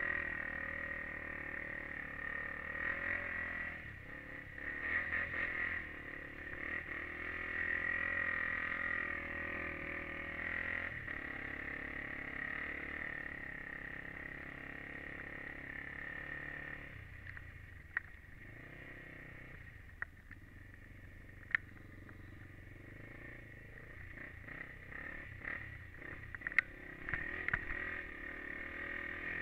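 Honda 400EX quad's single-cylinder four-stroke engine running at a fairly steady throttle, heard from a helmet-mounted camera, with its note shifting every several seconds. A few sharp clicks come in the second half.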